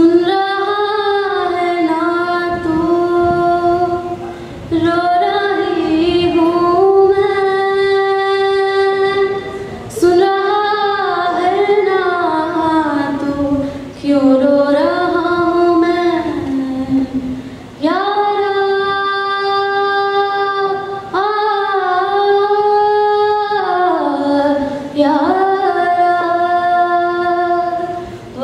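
A woman's voice singing a melody in phrases of long held and sliding notes, with a fresh phrase every three to four seconds and little accompaniment heard under it.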